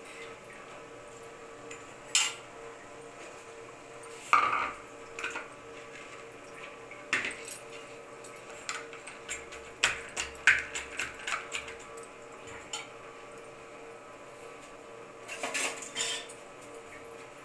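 A steel spoon clinking and scraping against ceramic plates and bowls as fried potato patties are moved and broken up: irregular sharp clinks, bunched in a few flurries, over a faint steady hum.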